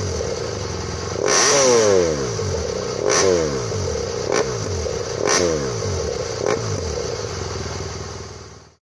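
BMW R1200GS K50's liquid-cooled boxer twin on its stock exhaust, idling and blipped five times: the revs jump up sharply, then sink back to idle, the second, fourth and fifth blips shorter. The sound fades out near the end.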